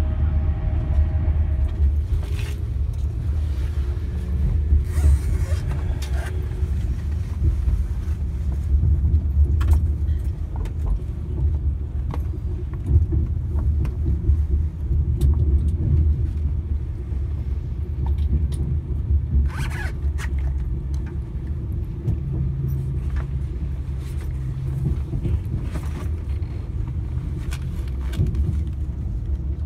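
Class 390 Pendolino electric train running, heard from inside the carriage: a steady low rumble with scattered clicks and knocks from the running gear and the car body.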